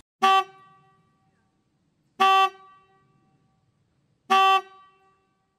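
Car horn honking three times, about two seconds apart, each a short identical toot with a brief ringing tail.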